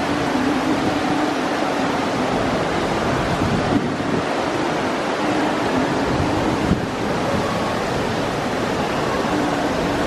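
Steady, even hubbub of a crowd in a busy train station concourse, with no single voice standing out.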